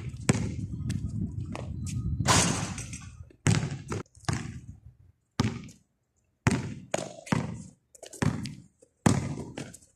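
Basketball bouncing on a concrete court: a string of sharp, unevenly spaced thuds from about three seconds in, after a few seconds of denser muffled noise.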